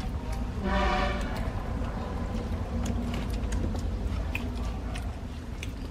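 Children chewing soft steamed rice cakes, with scattered small mouth clicks and smacks over a steady low rumble. A brief hummed voice sound comes about a second in.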